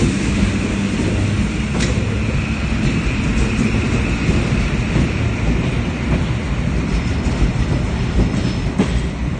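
EN57 electric multiple unit running past along the platform: a steady rumble of wheels and running gear, with a sharp click about two seconds in and another near the end.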